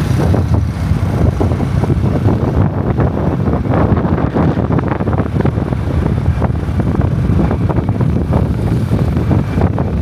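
Wind buffeting the microphone of a moving vehicle, a loud, steady rumble with the vehicle's running noise underneath.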